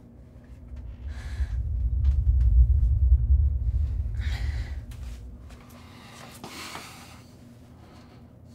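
A deep, low horror-film rumble swells for a few seconds and then fades. Three sharp breaths, like gasps, sound over it, about a second in, at about four seconds and near seven seconds.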